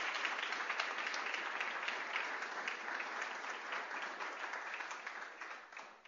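Audience applauding: many hands clapping in a dense, steady patter that thins out and fades near the end.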